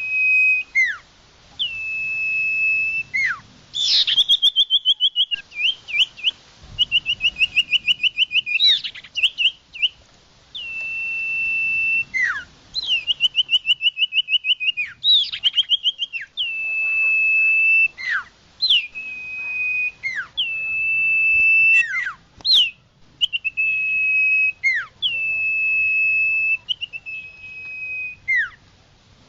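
A songbird singing in repeated phrases. Each phrase is a held, high, steady whistle about a second long that ends in a sharp downward sweep, alternating with fast rattling trills.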